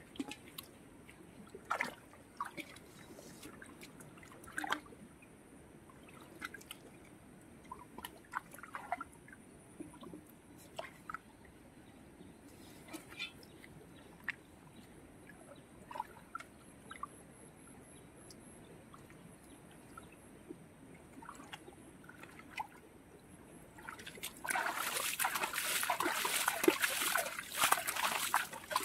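Hands sloshing in a shallow muddy puddle, with scattered small splashes and drips, then steady louder splashing near the end as mud and water are scooped out by hand.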